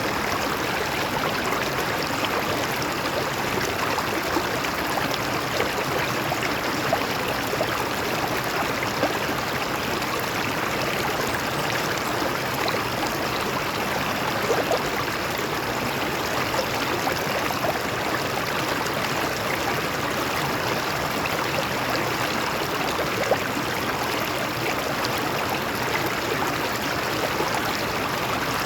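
Stream water flowing and splashing over rocks: a steady rush with small irregular splashes and gurgles.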